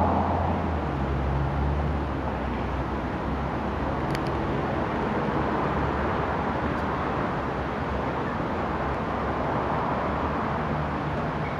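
A steady low engine drone over a wash of background noise, with the hum fading and returning over the seconds.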